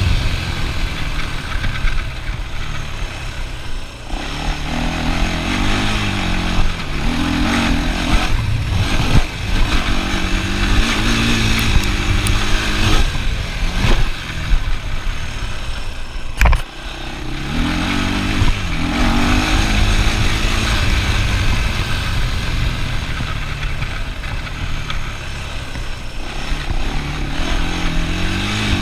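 ATV engine running under riding load, its pitch rising and falling again and again as the throttle is worked. A few sharp knocks cut through, the loudest about two-thirds of the way in.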